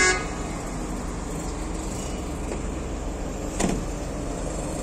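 Steady low rumble of idling engines. A brief pitched sound comes right at the start, and a single knock about three and a half seconds in.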